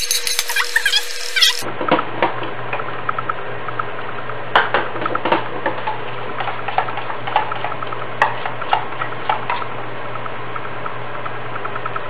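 Metal spoon stirring black gram flour batter in a stainless steel saucepan, clinking and scraping against the sides in irregular strokes that stop about ten seconds in, over a steady low hum.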